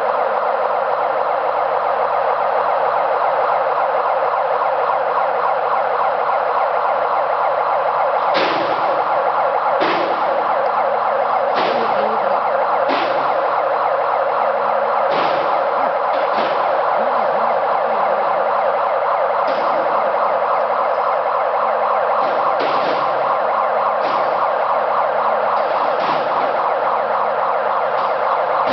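Overhead crane's warning siren sounding continuously, a steady warbling wail, while the crane travels with its load. Sharp short knocks come at irregular intervals from about a third of the way in.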